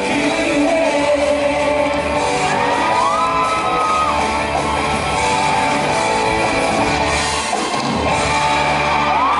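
Live band with electric guitars and drums playing a pop-rock song, with a lead singer on microphone, in a concert hall.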